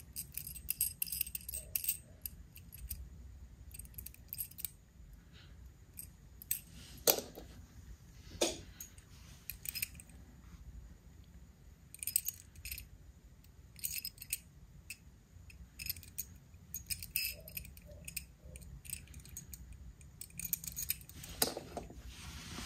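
Small toy cars handled in the fingers close to the microphone: scattered light clicks and rattles of their small plastic and metal parts, with two louder knocks about a second and a half apart near the middle.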